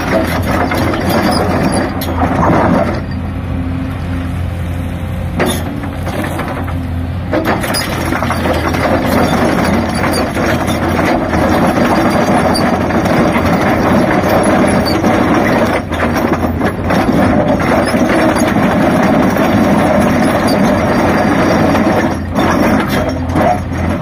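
Excavator-mounted rock trencher cutting a trench through stony ground: its toothed chain grinding against rock over the steady running of the Hyundai 480 excavator's engine and hydraulics.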